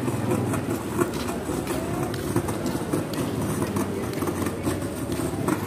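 Indistinct chatter of a gathered crowd over a steady rumbling background noise, with scattered small clicks and knocks.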